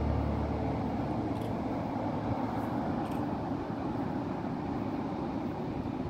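Heavy ocean surf breaking on a beach: a steady wash of breaking waves and white water, with most of the sound low-pitched.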